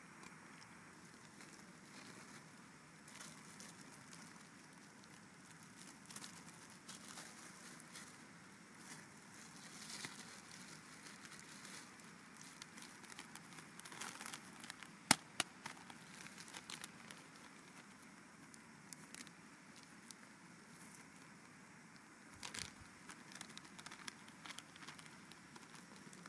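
Faint crinkling and rustling with scattered small clicks over a steady low hiss; one sharp click stands out about halfway through.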